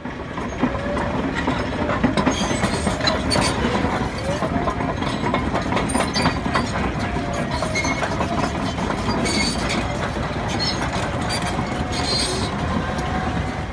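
Cat D6 crawler dozer travelling over dirt: steel tracks clanking and rattling steadily over its running engine, with a faint wavering whine.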